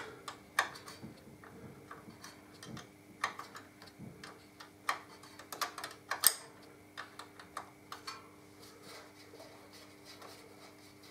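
Small ratcheting spanner clicking in irregular runs as it undoes a tiny screw holding a brake-line clip; the clicks thin out near the end.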